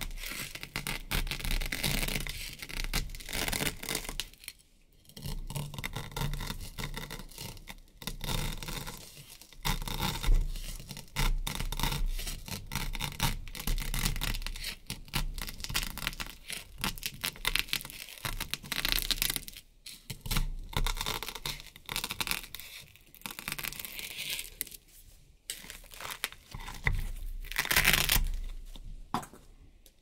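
Knife blade slicing down through a block of stacked black and white hook-and-loop (Velcro) strips: crisp, dense crackling and tearing of the hooks and loops, in repeated strokes with a few short pauses.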